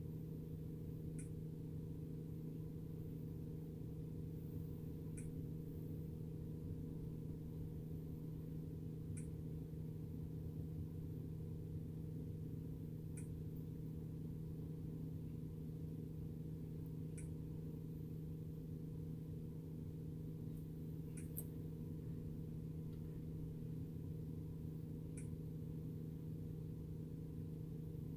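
Steady low hum in a truck cab, with a faint short click about every four seconds.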